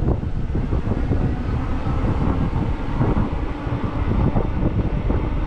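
Wind rushing over the microphone of an electric bike rider moving at speed, a loud uneven rumble with no clear motor tone.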